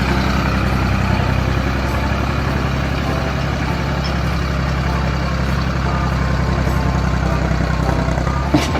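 Tractor engine idling steadily with a low, even drone; a short click near the end.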